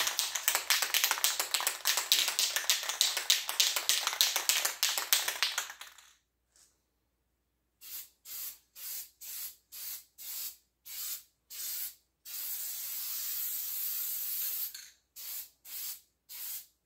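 Aerosol can of high-heat spray paint shaken hard for about six seconds, its mixing ball rattling rapidly. After a short pause come short hissing spray bursts, about two a second, then one longer spray of two to three seconds, then a few more short bursts.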